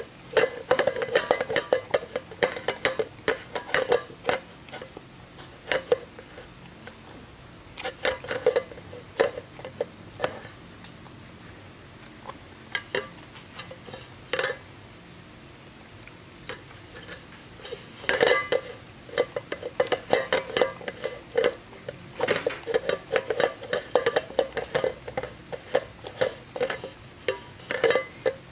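A Pembroke Welsh Corgi licking its stainless steel food bowl clean, the bowl clinking and ringing against its holder in irregular bouts with short pauses.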